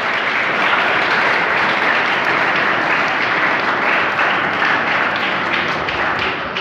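Audience of seated students applauding, a steady spell of clapping after a prize winner is called.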